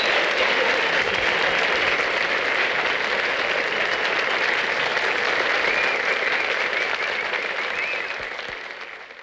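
Studio audience applauding steadily after a song, fading out near the end.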